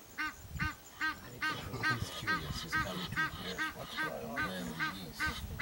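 A bird calling in a steady run of short honking notes, about two or three a second.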